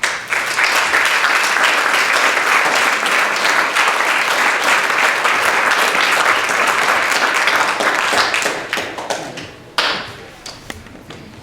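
Audience applauding: dense clapping that dies away over the last few seconds, with a single sharp knock near the end.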